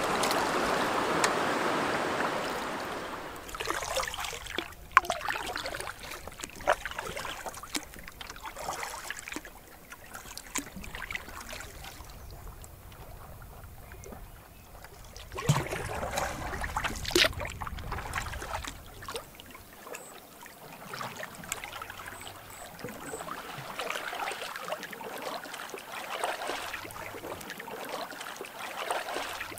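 Water splashing and lapping around a canoe as it is paddled, with a few sharp knocks scattered through; the water sounds are louder at the start and quieter toward the end.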